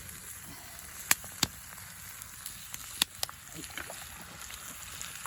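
Beef and onions sizzling in a pan over a campfire: a steady hiss, broken by three sharp clicks about a second in, just after, and about three seconds in.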